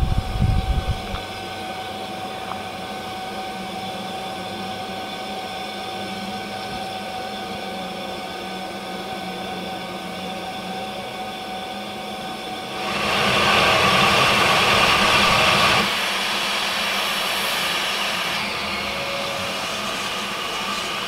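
Diesel locomotive idling with a steady hum and several fixed tones. About thirteen seconds in, a loud hiss of steam from the arriving steam locomotive lasts about three seconds, then dies back.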